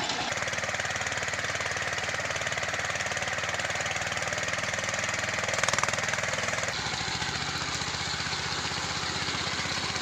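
Mini three-wheeled tractor's engine running steadily with a fast, even beat while its rear-mounted rotavator tills the soil. The sound changes abruptly twice, shortly after the start and about two-thirds of the way through.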